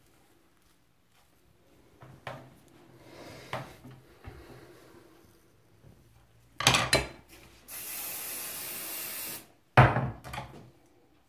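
Hair being brushed with light rubbing strokes, then knocks as an aerosol hairspray can is handled. The can then sprays in one steady hiss of under two seconds, and a louder clatter of handling the can follows.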